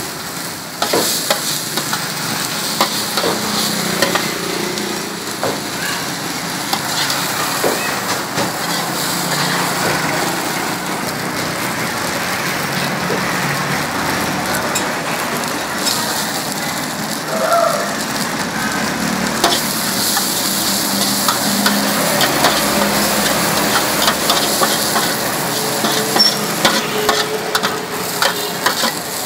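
Noodles, bean sprouts and chives frying in oil in a wide, shallow steel wok, sizzling steadily. A metal spatula scrapes and clicks against the pan as they are stirred.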